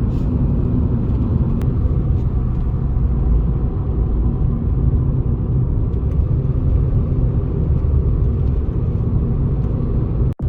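Steady low rumble of a road vehicle on the move, with a faint engine hum underneath.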